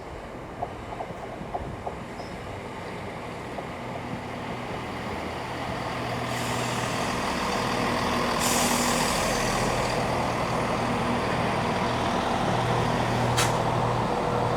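Heavy diesel engine running with a steady low drone, growing louder over several seconds as it draws closer, then holding; hissing air starts about six seconds in and again about two seconds later.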